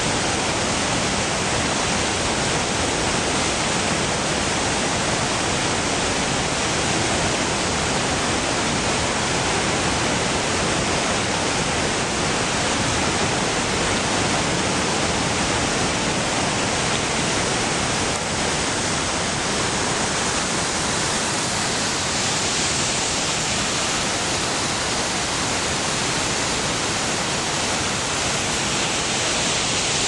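Rushing water from river rapids below a waterfall: a loud, steady, even hiss of white water, a little brighter in the last third.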